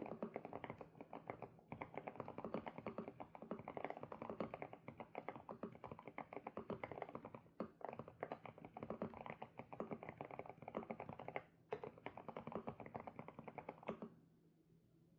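Typing on an SPM PL108W mechanical keyboard with Sunset switches: quick, continuous keystroke clacks with a couple of short pauses. The typing stops about a second before the end.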